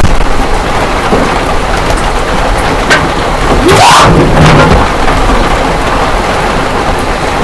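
Heavy hail and rain pelting down in a steady, dense rush, with a louder surge about four seconds in.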